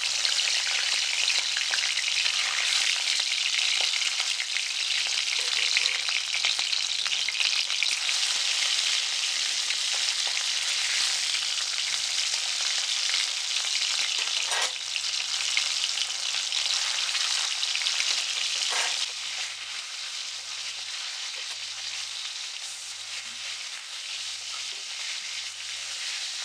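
Fish pieces sizzling as they fry in hot oil, loud at first and easing to a quieter sizzle about nineteen seconds in.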